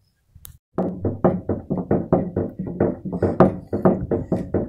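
Footsteps on loose, hollow wooden floor planks: a quick, even run of knocks that starts about a second in.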